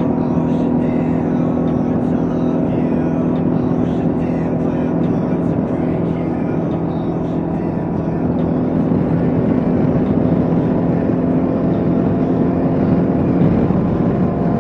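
Kawasaki KLR 650's single-cylinder engine running steadily at cruising speed, heard from on board, with wind and road noise over it.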